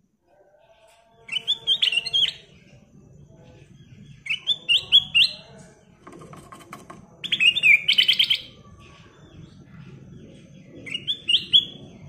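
Ruby-throated bulbul (kutilang emas) singing: four short phrases of rising and falling notes, about three seconds apart, over a steady low background hum.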